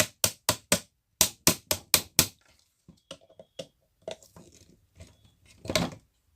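Quick series of sharp metal taps, about four a second for some two seconds, knocking out the front pin of a wall fan motor's rotor shaft, then a few lighter metallic clicks and a louder clatter near the end.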